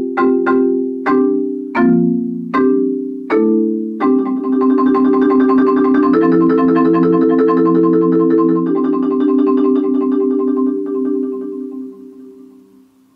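Marimba played with four yarn mallets: block chords struck at a slowing pace, then a rapid roll sustained on the closing chords, which change twice and then die away near the end.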